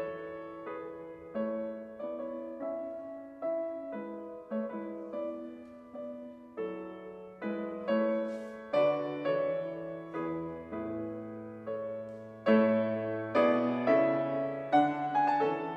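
Solo grand piano playing classical music: chords and melody notes struck about once or twice a second, each left to ring and fade, with a low bass line joining in during the second half.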